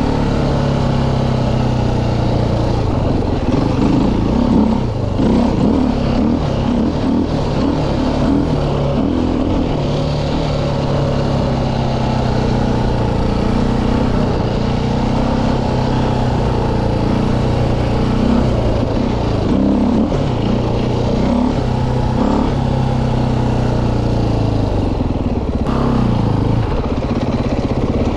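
KTM 400 EXC four-stroke single-cylinder dirt-bike engine running under way, its pitch rising and falling over and over with throttle and gear changes.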